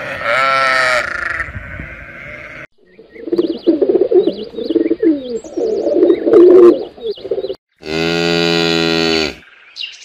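A sheep bleats once at the start. Then pigeons coo in low, warbling runs for several seconds, with faint bird chirps above. Near the end, a Highland calf gives one long, steady moo.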